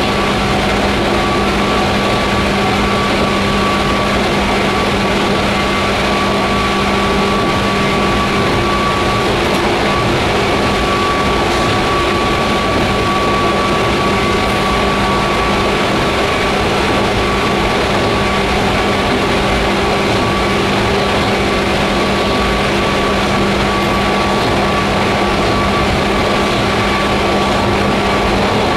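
Cabin noise inside a JR 119 series electric train running at steady speed, plausibly through a long tunnel: a dense, even rumble with a constant low hum and a fainter steady high whine.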